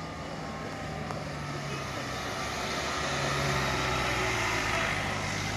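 A steady engine drone under a broad rushing noise, swelling louder over the first few seconds and then holding.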